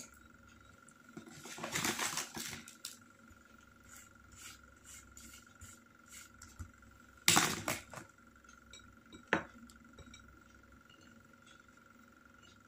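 Hands wrapping banana in a spring-roll wrapper on a paper-lined plate: soft rustling of the wrapper and paper. A louder, sharper rustle comes about seven seconds in, and a single click a couple of seconds later.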